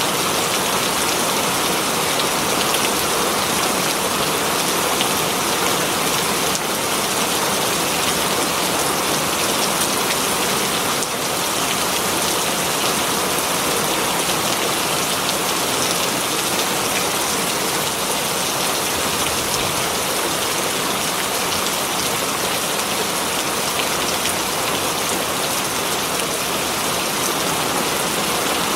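Heavy rain falling steadily on foliage, a dense even hiss of drops with no pauses.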